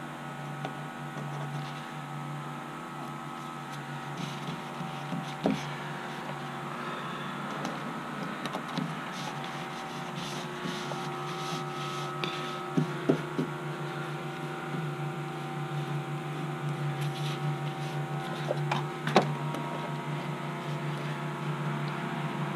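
A steady machine hum of a few fixed tones, with a handful of short light knocks and taps scattered through it.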